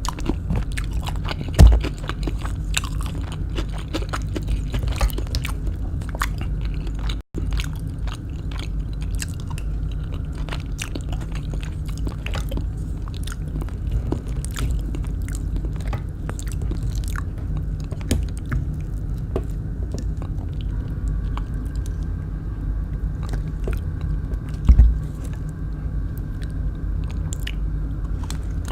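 Close-up chewing and crunching of kwek kwek, deep-fried battered quail eggs, with many small crisp crackles over a steady low rumble. Two heavy thumps come, one about two seconds in and one near the end. The sound breaks off for an instant about seven seconds in.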